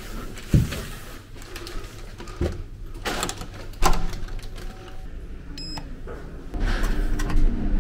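Hotel room door knocking and clicking shut with its latch about four seconds in, after a few soft knocks of movement. A short electronic beep follows from the lift call button, then a steady low hum begins near the end.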